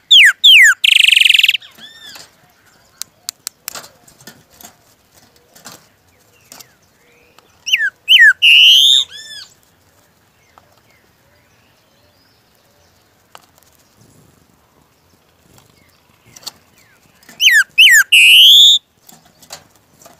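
Golden-billed saltator (chalchalero) singing three short phrases, about eight seconds apart. Each phrase is a few falling whistled notes ending in a harsher, buzzy note. Faint clicks come between the phrases.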